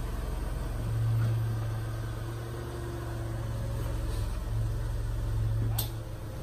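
Low, steady rumble of a car running as it creeps slowly forward toward an object under its front wheel, with one short sharp click near the end.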